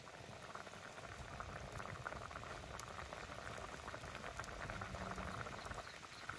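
Soupy curry boiling hard in a steel kadai: a steady, dense bubbling made of many small pops.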